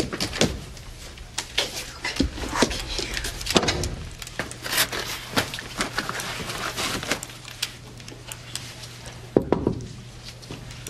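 Scattered clicks and knocks of footsteps and of a camera bag and camera gear being handled, over a steady low hum.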